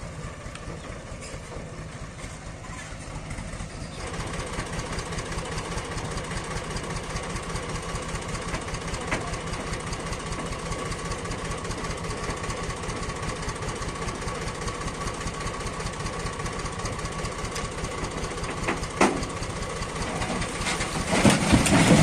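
Farm tractor engine running steadily with an even knock, working the hydraulics that tip a trailer-load of firewood. About four seconds in it gets a little louder and a steady whine joins it.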